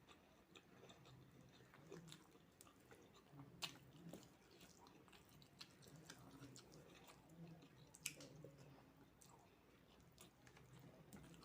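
Faint, close-up sounds of a person chewing and eating fried rice with chicken curry: soft mouth sounds with many small scattered clicks, and two sharper clicks about three and a half and eight seconds in.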